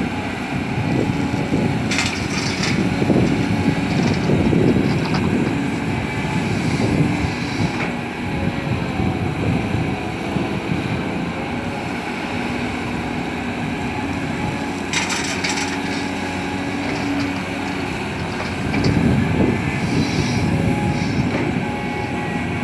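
CAT 320D hydraulic excavator's diesel engine and hydraulics working steadily while it digs and loads soil, with sharp metal clanks about two seconds in and again about fifteen seconds in.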